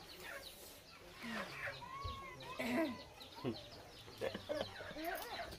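Chickens clucking, a string of short calls through the yard.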